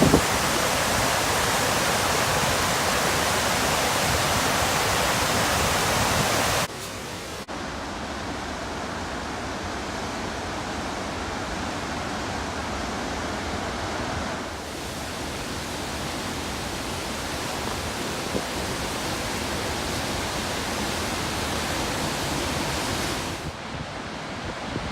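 Steady rushing roar of a waterfall, loud for the first several seconds, then dropping to a quieter, duller rush after a short break about seven seconds in, with another slight change about halfway through.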